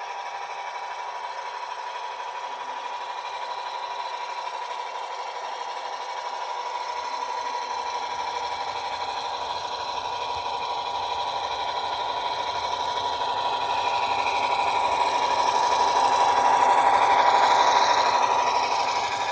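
HO scale Rapido GP38 model locomotive running on track, its sound decoder playing an EMD diesel engine through the model's small speaker, with mechanical rattle from the drive. The sound builds steadily, is loudest near the end, then drops off.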